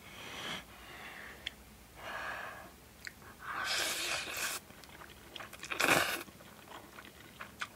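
A person eating instant jajang noodles, chewing in several short noisy bursts. The longest and loudest comes about three and a half seconds in, and a sharper one about six seconds in.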